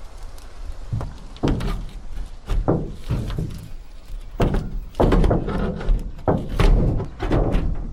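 Irregular knocks and thuds mixed with scraping, from hand work on glued-down material being pried loose; the knocks come closer together and louder about halfway through.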